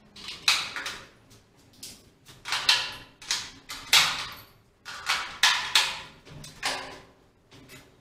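Hand tools such as wrenches and sockets clinking and clattering against each other and a plastic socket-set case as they are packed away: a quick, irregular run of sharp metal clinks with short ringing tails.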